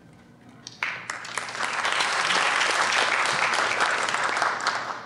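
Audience applauding, starting about a second in, holding steady and dying away near the end.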